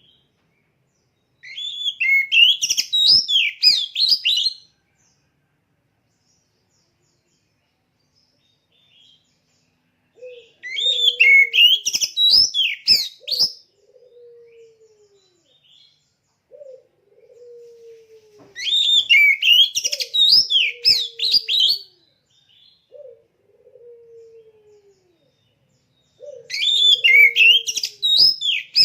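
Oriental magpie-robin (kacer) singing in bouts of about three seconds, each a rapid run of varied, clear whistled phrases, with pauses of several seconds between bouts. From about ten seconds in, a lower falling note repeats every second or two behind the song.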